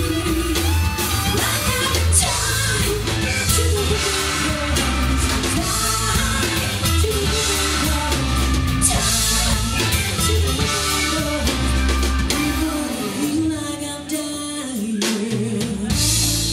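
Live rock band playing: a woman singing over electric guitar, bass guitar, drums and keyboard. About fourteen seconds in the bass and drums drop out for a moment, then the full band comes back in near the end.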